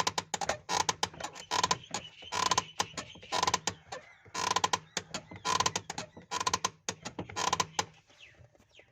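Toyota Corolla clutch pedal being pressed and released over and over, its pivot creaking with each stroke, about once a second, until it stops near the end. The creak comes from the pedal's pivot bushes, which are dry and rusted inside.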